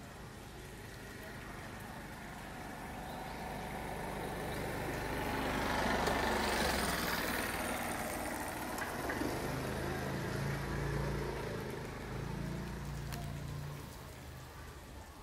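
A motor vehicle passing by: engine and road noise swell to a peak about six or seven seconds in, a low engine hum carries on for a few seconds after, then it fades away.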